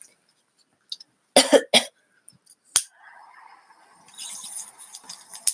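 A lighter clicked a couple of times, then water bubbling steadily in a small glass bong as a hit is drawn through it, with a hiss over the bubbling near the end.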